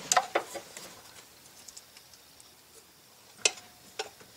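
Sharp plastic-and-metal clicks as the 6.2 diesel's injector line retainer clips are popped open by hand. There is a quick cluster of clicks at the start, faint ticking, then two more clicks near the end.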